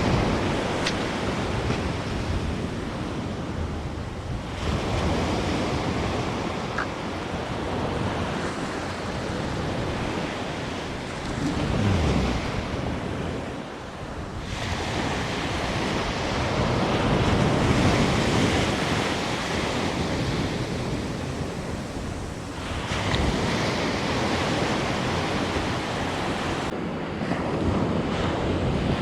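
Sea surf washing onto a sandy beach, the noise swelling and falling back every several seconds as waves break, with wind buffeting the microphone.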